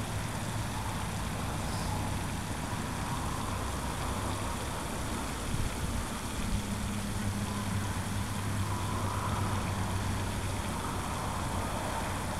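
Steady low rumble of distant road traffic, an even background noise with no sudden sounds.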